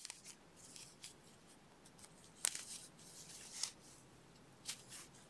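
Faint rustling of yarn and a crochet hook as a single crochet stitch is worked, with a few small sharp clicks, the loudest about two and a half seconds in.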